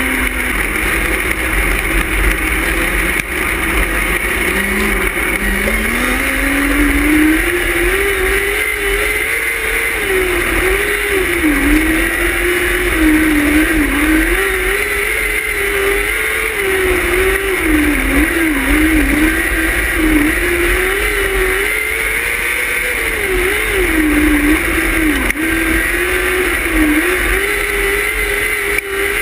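Onboard sound of a 600cc micro sprint car's engine racing on a dirt oval. Its pitch repeatedly climbs on full throttle and drops as the driver lifts for the turns. It falls low about four seconds in, then winds back up.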